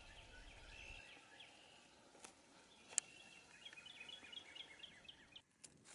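Faint songbirds chirping in the background, with two sharp clicks, the louder one about three seconds in.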